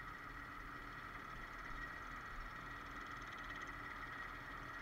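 Steady running hum of a utility boom truck's engine and hydraulics, with a constant high whine over a low rumble.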